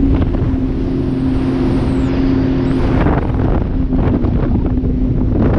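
Personal watercraft running at speed: a steady engine drone under wind buffeting on the microphone and the rush of spray off the hull, with louder splashing about three seconds in.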